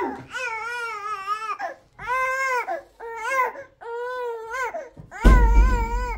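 An infant crying in a series of long, wavering wails. A loud low rumble joins the last wail near the end.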